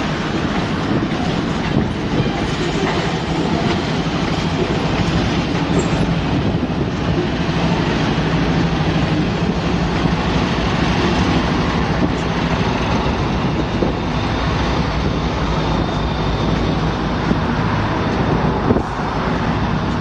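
Norfolk Southern freight train rolling slowly past at close range: cars rumbling and wheels clacking over the rail joints, with the steady drone of a diesel locomotive at the rear of the train as it goes by.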